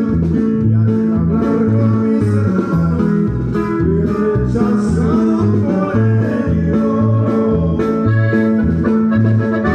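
Norteño band music with plucked strings over a bass that alternates between two notes in a steady beat.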